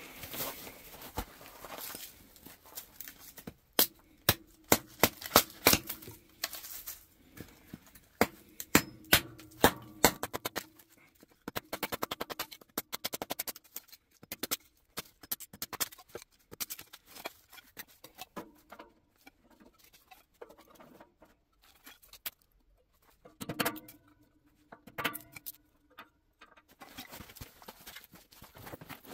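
Hatchet chopping firewood into kindling: a series of sharp wooden cracks and knocks, densest in the first ten seconds, then quicker, lighter strikes. Near the end a few knocks as split sticks are laid into a steel wood stove's firebox.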